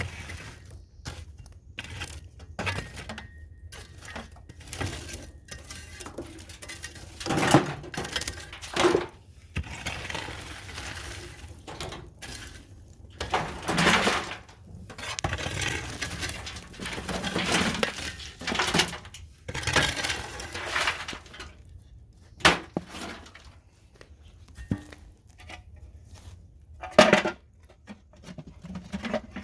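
Hot charcoal being raked from a clay oven into a metal funnel and pail: bursts of scraping, with lumps of charcoal chinking and clattering against the metal, and a few sharp knocks.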